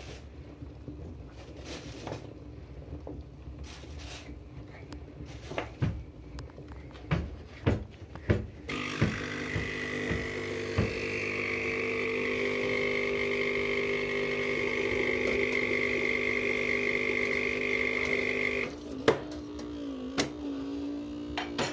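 Scattered knocks and clicks, then a steady electric appliance hum with a high whine for about ten seconds that cuts off suddenly, followed by a few sharp clinks.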